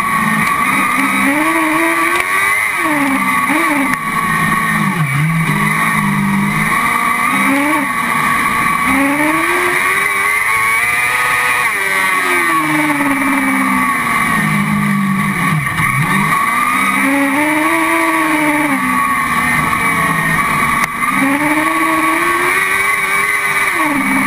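Autocross car engine heard from inside the cockpit, revving up and dropping back again and again, with one longer climb and fall about ten seconds in.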